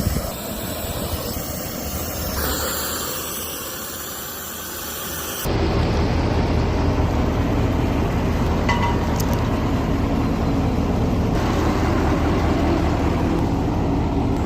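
Oxy-fuel cutting torch hissing as it cuts a 273 mm steel pipe. About five seconds in, the sound turns abruptly louder and deeper, and stays steady.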